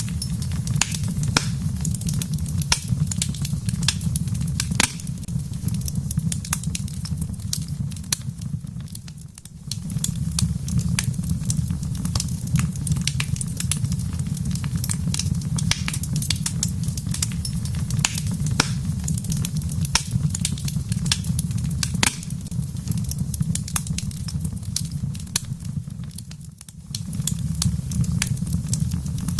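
Wood fire crackling in a fireplace: scattered sharp pops and snaps over a steady low rumble, which briefly drops away about a third of the way in and again near the end.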